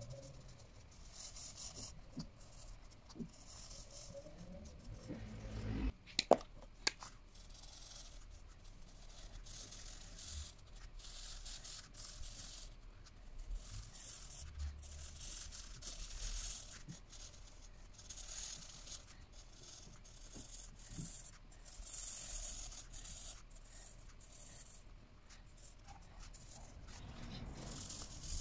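Felt-tip marker rubbing across colouring-book paper in short scratchy strokes. Two sharp clicks come a little after six seconds in, as the marker is changed.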